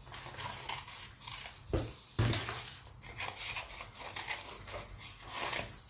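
Scissors cutting through sheets of tempera-painted paper: a run of short crisp snips and paper rustling, with two louder knocks about two seconds in.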